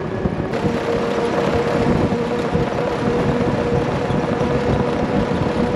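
Knobby GBC Kanati Mongrel ATV tires (30x10-15) on a CJ-2A Willys Jeep rolling on pavement at road speed: a lot of road noise from the knobs, a steady drone with a hum that comes in about half a second in.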